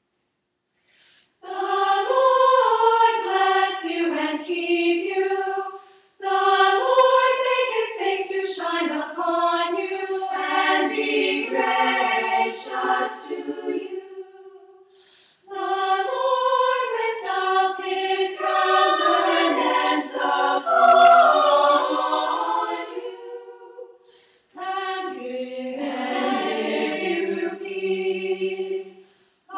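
Women's choir singing a cappella in four phrases, each ending in a short silent break. The singing starts about a second and a half in.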